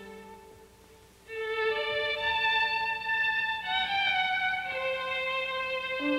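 Instrumental music: slow, long-held notes that die away about a second in, then a new phrase of long notes begins and steps from pitch to pitch.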